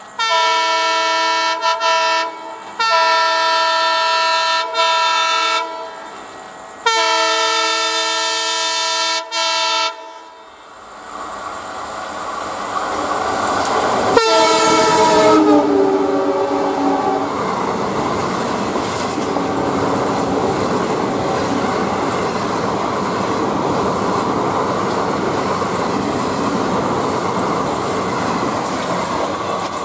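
Passenger train's locomotive horn sounding three long blasts as it approaches, then a shorter blast about fourteen seconds in that falls in pitch as the locomotive goes by. After that comes the steady rumble and wheel clatter of the express's coaches passing at speed.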